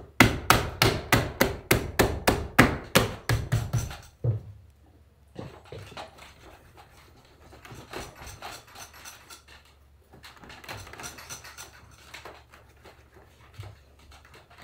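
Leather saddle seat being worked by hand: a quick run of about four to five taps a second for roughly four seconds, then quieter rubbing and scraping over the leather as the wrinkles are compressed down.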